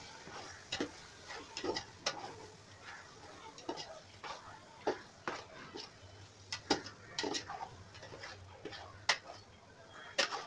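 A spoon stirring and scraping chicken pieces around a metal pot, with irregular knocks and scrapes against the pot's side and bottom, over a faint sizzle of the meat sautéing in oil and masala.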